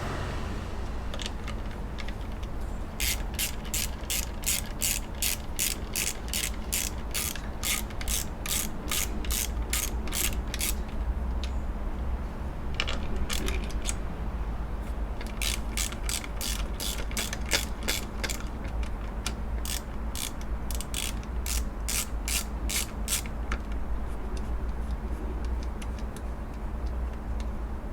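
Ratchet wrench clicking as it backs off the 10 mm nut and bolt holding a bracket on the engine, in two long runs of about four clicks a second with a pause between. A steady low rumble runs underneath.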